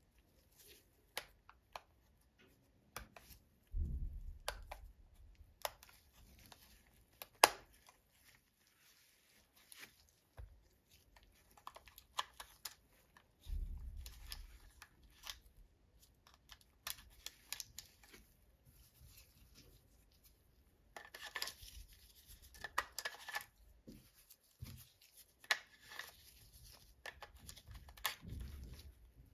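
Plastic casing and parts of a Canon PowerShot A640 compact camera being handled and pried apart by gloved hands: irregular clicks, snaps and scraping with glove rustle. One sharp click stands out about seven seconds in, and dull low bumps come at about four and thirteen seconds.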